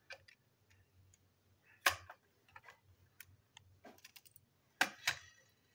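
Small screwdriver clicking and scraping against a plastic motorised toy train chassis as its screws are worked out and the chassis is handled: a scatter of light clicks and knocks, the loudest about two seconds in and a close pair of sharper clicks near the end.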